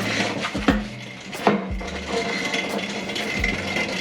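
Scattered metallic clanks and knocks, about three sharp ones, as a car body is handled and shifted in a workshop, over a steady hum.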